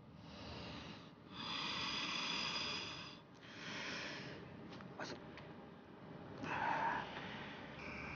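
A person breathing heavily in a series of long, hissing breaths, the longest about a second in and another strong one near the end.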